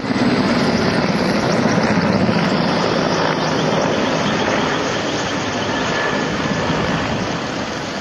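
Firefighting helicopter's rotor and engine, a loud, steady rushing drone that eases slightly over the seconds.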